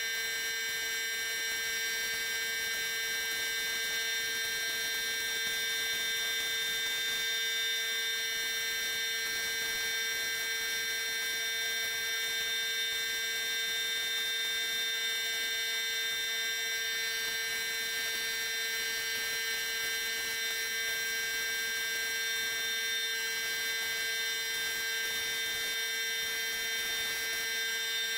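Steady machine whine: several constant pitched tones over a faint hiss, unchanging throughout.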